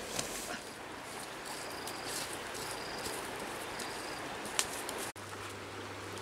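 Outdoor rural ambience with a steady hiss and a few short high-pitched chirps from insects or birds in the first few seconds. A sharp click comes about four and a half seconds in, and after a brief dropout a low steady hum sets in.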